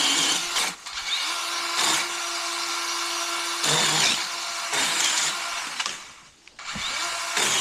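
DeWalt cordless pole saw running and cutting, its electric motor whining at a steady pitch; it lets off briefly about six seconds in and starts again.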